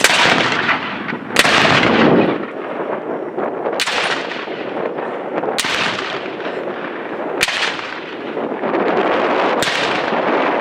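A battery of Civil War-style field cannons firing one after another: six loud booms about two seconds apart, each followed by a long rolling rumble that dies away.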